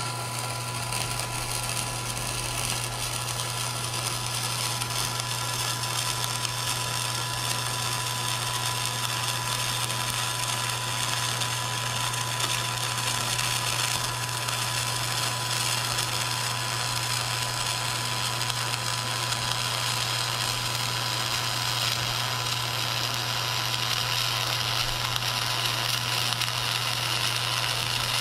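Flux-cored arc welding of stainless steel with 308L flux-cored wire, fed from a Miller XMT 304 through a suitcase wire feeder. The arc runs as one long, continuous bead: a steady hiss over a low hum.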